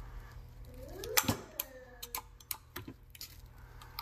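Sharp metal clicks and taps of hand tools against the aluminium case of a fuel injector control module, working its small cover loose; the loudest click comes about a second in, just after a brief rising tone.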